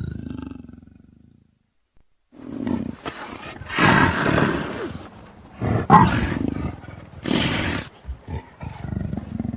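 Creature roar sound effects: one roar dies away over the first second and a half, then after a short silence a run of loud roars follows, the loudest about four and six seconds in.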